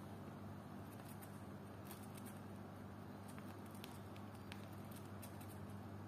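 An agitated hamster biting at its cage makes faint, irregular clicks and taps, a few each second, over a steady low hum.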